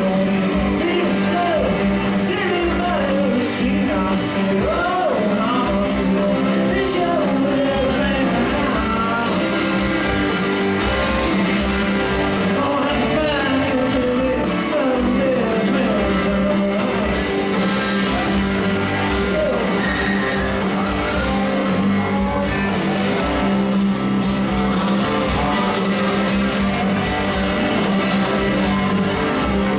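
Live blues-rock band playing at full volume: electric guitars, bass and drum kit, with a lead line bending in pitch over a steady low note.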